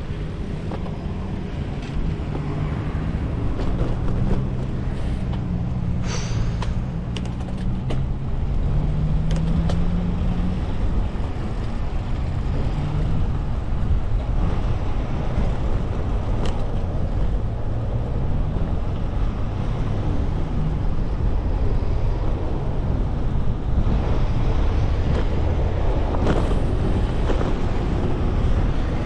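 Road traffic on the bridge's roadway passing alongside, with a vehicle engine's hum in the first half, over a steady low rumble from a bicycle-mounted camera rolling along. Scattered light clicks and rattles run through it.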